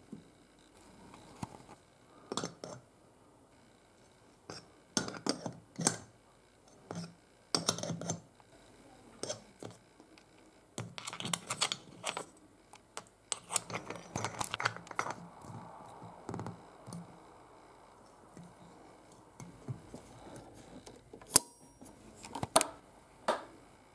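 Hand-handling noise of a glass ceiling-light bowl being fastened onto its threaded metal stem: irregular clicks, taps and scrapes of metal on metal and glass as the nut and washer and then the decorative knob are screwed on. Two sharp clicks come near the end.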